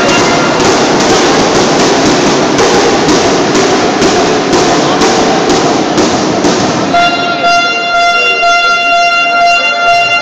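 Basketball crowd in a gym making loud noise with a steady beat. About seven seconds in, a fan's horn sounds one long steady note over it.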